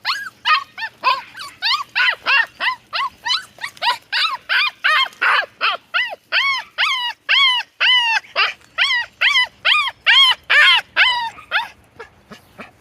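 Mini goldendoodle puppy yipping and barking in a rapid string of short, high, arched calls, about three to four a second, during tug-of-war play; the calls stop about a second before the end.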